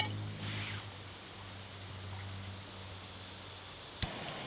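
Steady rushing of a nearby waterfall, with a low hum under it that stops just before a single sharp click about four seconds in.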